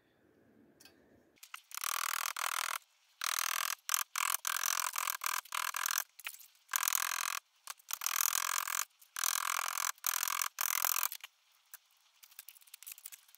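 An abrasive tool rasping against the sheet-steel gearstick turret as its edge is dressed, in a run of strokes about half a second to a second long with short gaps, stopping near the end.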